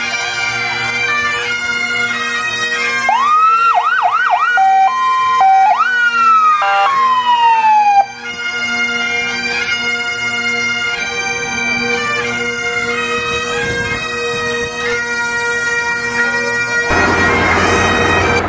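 Bagpipe music, steady drones under a chanter melody. Between about 3 and 8 seconds a fire engine siren sounds over it: several quick whoops, a brief two-tone, then one long rise and slow falling wail that cuts off. Near the end the piping stops and a steady outdoor noise takes over.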